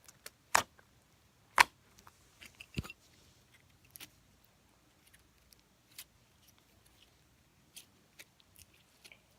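Unicorn putty being handled and stretched by hand: sharp clicks and pops, the loudest in the first three seconds, then sparser faint ticks.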